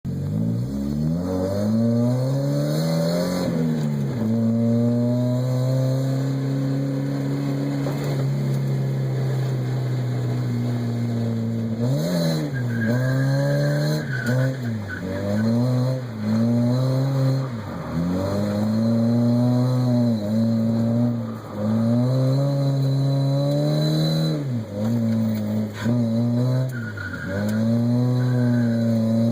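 Mazda Miata's four-cylinder engine revving hard while drifting, held at steady high revs for long stretches, then dropping sharply and climbing again over and over as the throttle is lifted and reapplied.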